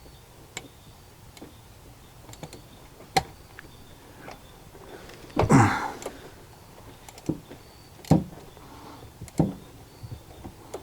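Scattered clicks and knocks of metal hand tools as a socket and extension are worked down onto a spark plug and fitted together; the loudest is a clattering knock about halfway through.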